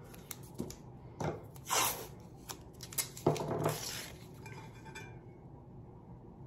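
Handling of blue painter's tape on a stainless steel tumbler: a string of tape rustles and pulls with light knocks and clinks of the metal cup over the first four seconds.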